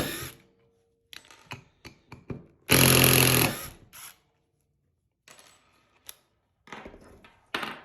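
A cordless impact driver runs freely for about a second, spinning up unloaded. Around it come small metallic clicks and clinks of driver bits being handled.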